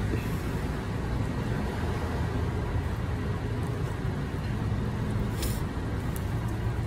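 Steady rumble of street traffic, with a brief faint rustle about five and a half seconds in.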